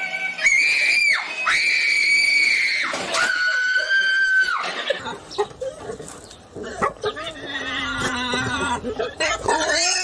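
Three long, high-pitched screams in a row, each held level and then dropping off, followed by a jumble of shorter cries and scuffling noise.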